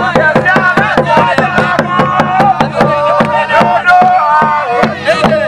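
Large skin-headed drums beaten fast and evenly, about six strokes a second, under a group of voices singing a chant.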